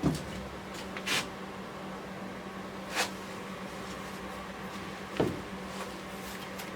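Four separate knocks, each a short clunk of something being set down or handled, over a steady low hum.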